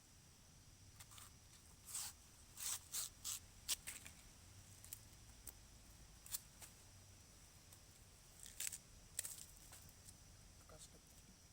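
Irregular short, crisp snips and rustles over near silence, bunched about two to four seconds in and again around nine seconds in.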